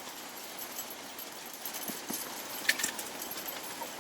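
Steady wind noise, with a few small clicks and knocks about two to three seconds in, the sharpest near the end of that stretch.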